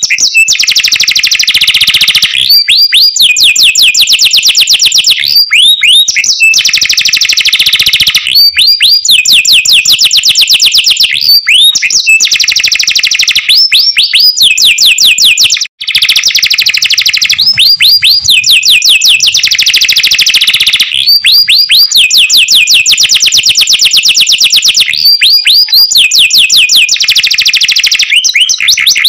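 Domestic canary singing a loud, continuous song of fast rolling trills alternating with rising whistled notes, phrase after phrase with only short breaks. The song cuts out for an instant about halfway through.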